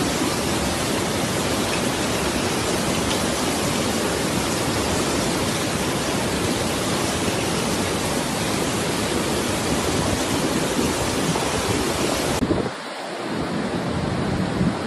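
Heavy rain pouring down as a steady, dense hiss. About twelve seconds in, it cuts abruptly to a quieter recording.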